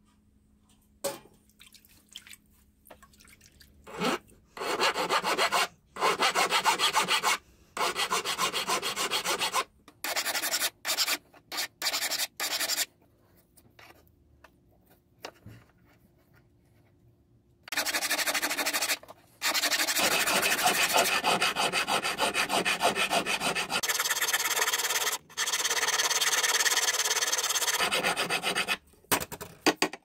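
Hand file rasping on the end of a silver tube, in several runs of quick strokes with short pauses between them and a longer quiet spell in the middle.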